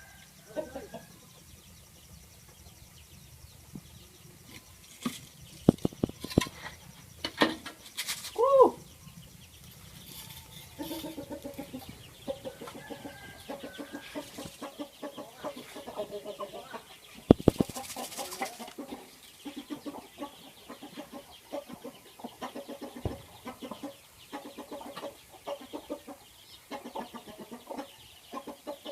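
A bird calling: a loud squawk about eight seconds in, after a few sharp knocks, then a long run of short, rapid repeated calls through the second half.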